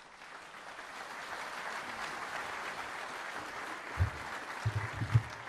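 Audience applauding steadily in a large hall. A few low thumps come in about four to five seconds in.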